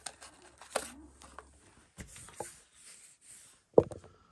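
Close handling noise: scattered clicks, taps and rustles, then a loud knock near the end followed by a short steady tone.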